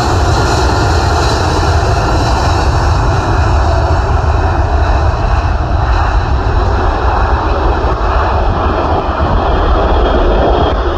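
Jet engines of a Boeing 787 Dreamliner running loud and steady as the airliner turns onto the runway and powers away down it: a deep rumble under a constant hiss.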